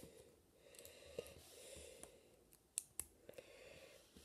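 Near silence broken by a few faint, sharp clicks of plastic LEGO bricks being handled: one about a second in and two close together near three seconds.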